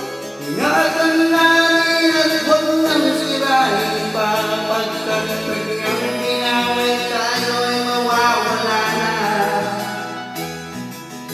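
A man singing in Tagalog into a handheld microphone over a recorded backing track. The music fills in fuller about half a second in.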